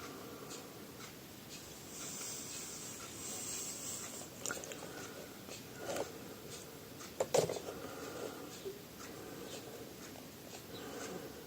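Faint handling noises: scattered small clicks and knocks over a low hiss, with the sharpest double knock about seven seconds in.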